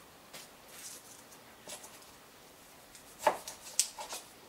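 Large knife cutting through pink styrofoam and knocking against the cutting board beneath, as the foam is trimmed into small gate pieces. There are a few faint taps early on, then a cluster of sharper, louder knocks from about three seconds in.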